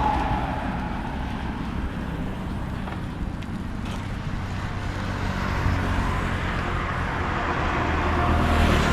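Steady low rumble of road traffic and vehicle engines, growing louder near the end.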